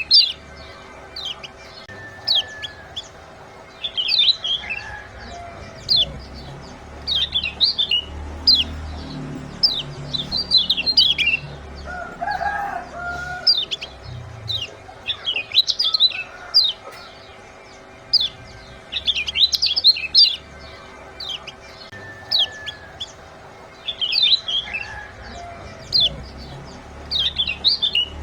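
Kecial kuning white-eyes giving their rapid, high 'ciak' chirps in quick clusters every two to three seconds, over a faint steady hum. Near the middle comes one lower, fuller bird call. This is a lure recording of the kind played to set caged birds singing.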